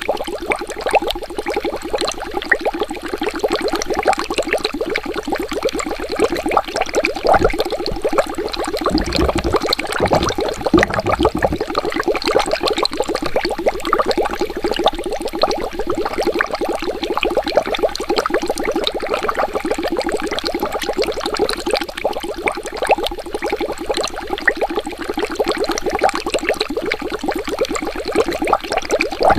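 Water bubbling continuously, a dense stream of rapid small bubble pops with no pause. A low rumble joins in about a third of the way through for a few seconds.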